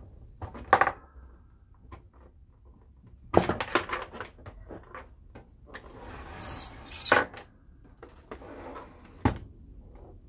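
A plastic-cased VCR being handled and turned around on a tabletop, with its power cord moved about: a few sharp knocks and rattles, a louder scraping slide of the case across the table a little past the middle, and one last knock near the end.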